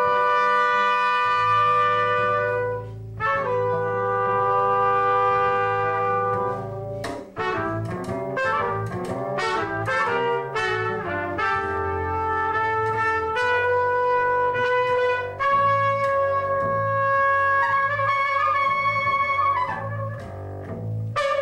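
Two trumpets and a double bass playing free jazz. The horns hold long notes together, break into a fast run of short notes about seven seconds in, then settle back into sustained notes over the bass.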